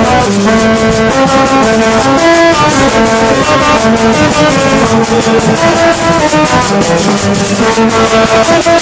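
Rara band music: horn notes held and stepping in a repeating melody over a steady percussion beat, loud and continuous.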